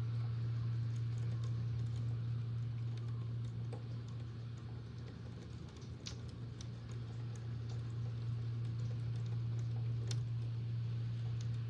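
Electric fan running with a steady hum, under rain with scattered sharp taps at irregular times, the loudest about six and ten seconds in.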